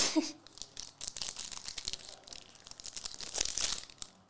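Foil wrapper of a 2022 Star Wars Finest trading-card pack being torn open and crinkled, a dense crackling that is loudest about three and a half seconds in.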